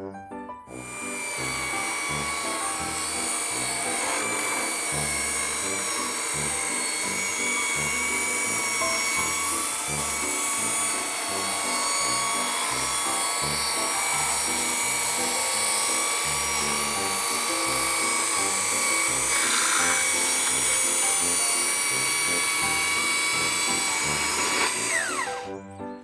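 Electric chainsaw on a Logosol rail mill, its motor running steadily with a high whine as it rips a board along the log. It starts just after the opening and spins down with a falling whine near the end.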